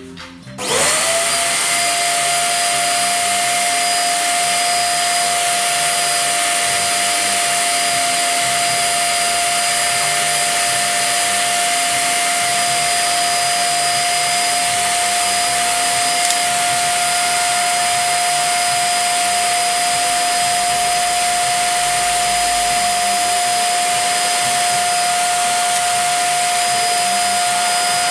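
An electric blower motor spins up about half a second in, its whine rising quickly to a steady pitch, then runs on evenly with a loud hiss of moving air.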